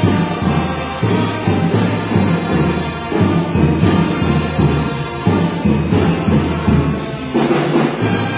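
Marching band playing: trumpets carrying the tune over a drum beat and a bass line that steps from note to note.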